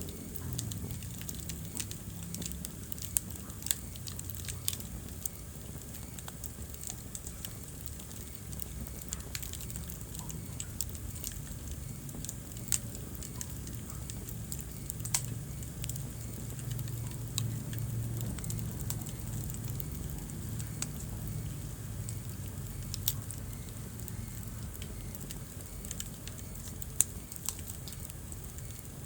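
Wood fire burning in a fireplace, crackling with scattered sharp pops, a few louder than the rest, over a low steady rumble.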